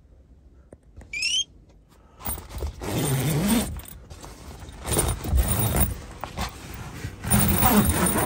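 Rooftop tent's nylon fabric rustling and its zip being pulled open, in three noisy spells. A brief high rising chirp comes about a second in.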